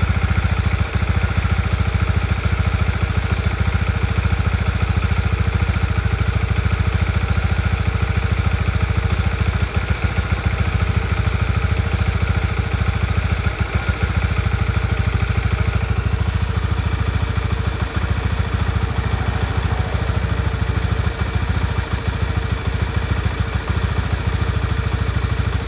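Honda Winner X's DOHC single-cylinder engine idling steadily, not revved, heard close up at the engine.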